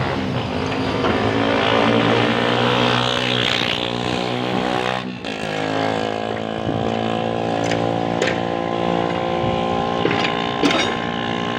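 Excavator's diesel engine running steadily at working revs, with a brief dip about five seconds in and a few sharp knocks, the loudest near the end.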